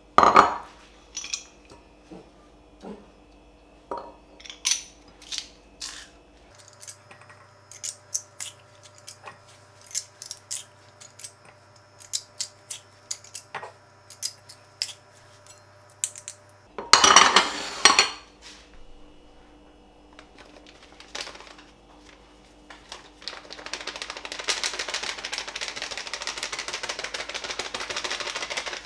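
A metal spoon and garlic press clicking and clinking against a glass mixing bowl while chicken wings are mixed with marinade. There is a louder clatter about seventeen seconds in, and a steady stirring noise over the last five seconds.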